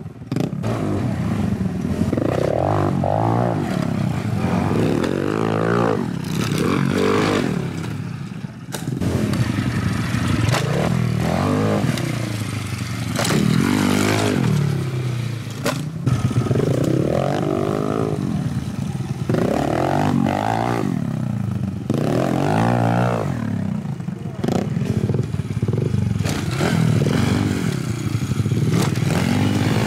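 Pit bike engines revving up and easing off over and over as the bikes are ridden over dirt jumps, the pitch rising and falling every second or two.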